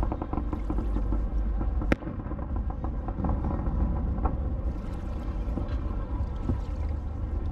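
Fireworks display heard live: a steady low rumble of bursts with scattered crackling, and one sharp crack about two seconds in.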